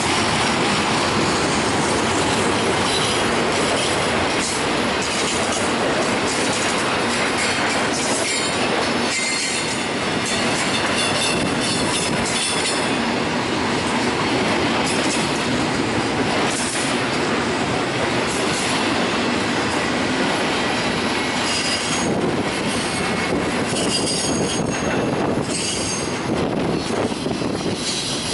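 Double-stack intermodal container train rolling past: steady rumble and rattle of the loaded well cars' wheels on the rails, with clickety-clack over the joints and occasional thin, high wheel squeal.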